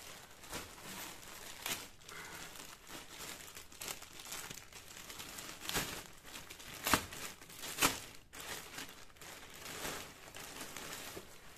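Plastic shipping bags crinkling and rustling as a parcel is handled and pulled open, with a few sharper, louder crackles about six to eight seconds in.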